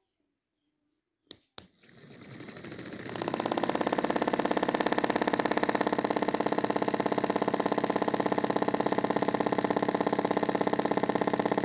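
Two clicks of a switch, then the small electric motor of a cardboard model rice thresher spins up over about two seconds and runs steadily with a fast, even buzz, turning the wire-toothed threshing drum.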